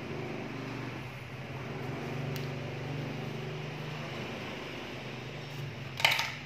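A steady low mechanical hum that swells slightly and then eases. Near the end there is a short, sharp clatter of something hard being handled.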